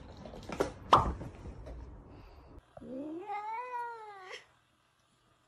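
Two knocks about half a second apart, the second one loud. Then a cat's single long meow, rising and then slowly falling in pitch, that cuts off near the end.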